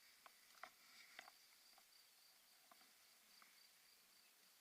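Near silence: a faint, steady, high-pitched tone with a few faint ticks scattered through it.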